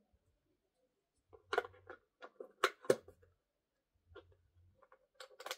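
Handling noise from a plastic toy: scattered sharp clicks and knocks, the loudest pair about two and a half to three seconds in and a quick cluster near the end, with soft rubbing in between.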